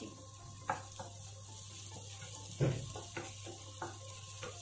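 Chopped onion and crushed garlic sizzling in hot mustard oil in a kadai, stirred with a wooden spatula that scrapes and knocks against the pan about five times, the loudest knock about halfway through.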